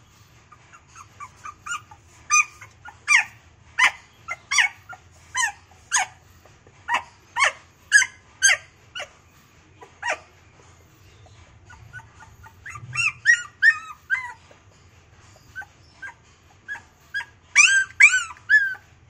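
Young puppy crying in short, high-pitched yelps, one or two a second, with a break of about two seconds just past halfway and a quicker run of cries falling in pitch near the end.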